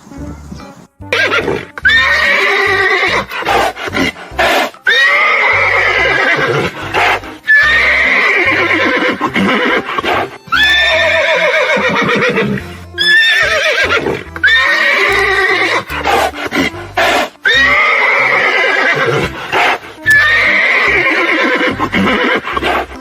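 Horse whinnying again and again, about eight calls each a second or two long, every call starting high and sliding down in pitch with a quavering trill.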